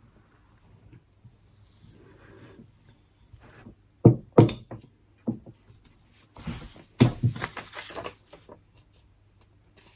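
Several sharp knocks and clattering of objects being handled. The loudest knocks come about four seconds in, with more rattling around seven seconds in.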